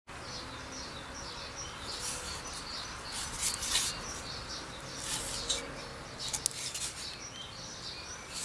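Small birds chirping repeatedly outdoors, with a few short rubbing and clicking sounds over the top.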